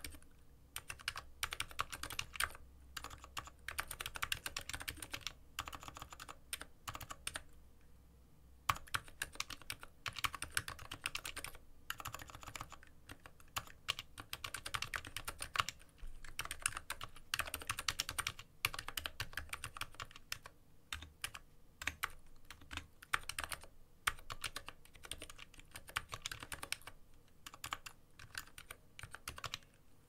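Steady typing on an X-Bows Knight ergonomic mechanical keyboard with Gateron Optical Silent Silver switches, set on a bare desk: a quick run of key clicks with a few brief pauses.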